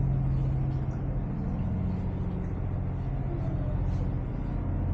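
Steady low drone of a lake sightseeing ship's engines, heard from inside the passenger cabin while under way.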